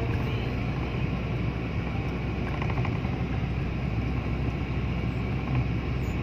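Steady road noise of a car driving on a wet road, heard from inside the cabin: a low engine hum under an even tyre hiss.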